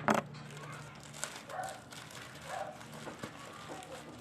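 A dog barking a few times in the background, short separate barks about a second apart. Two sharp knocks at the very start are the loudest sounds.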